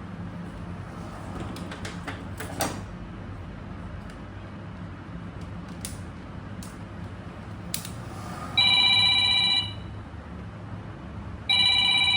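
A telephone ringing: two rings about a second long each, a couple of seconds apart, in the second half. Before them there are a few light clicks and knocks over a steady low hum.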